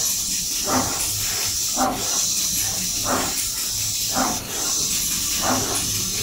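ZB3545TP pick-and-place machine running: a steady high hiss with a brief break about every two and a half seconds, and a short whir from the moving placement head about every second and a quarter, over a low hum.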